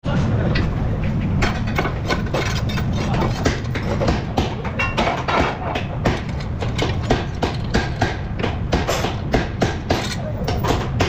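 Irregular metallic clinks and knocks of steel suspension parts, a chain and hand tools being handled during front suspension work. They come faster near the end, over a steady low workshop rumble.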